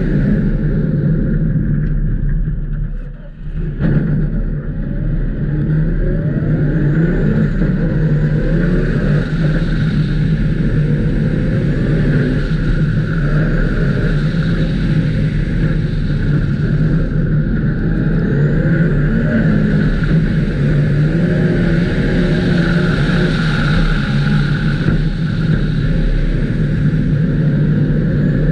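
Race car engine at full effort on an ice circuit, its revs rising and falling through the corners and straights, with a brief drop in sound about three seconds in.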